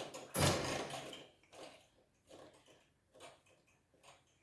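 A baby's breathy fake cough about half a second in, followed by a few faint short puffs of breath at roughly one-second intervals.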